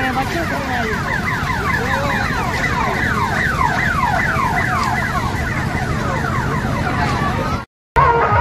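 An electronic siren-like warble, a fast string of falling sweeps about five a second, over the steady noise of a fairground crowd. It cuts out near the end, and music with steady held notes begins.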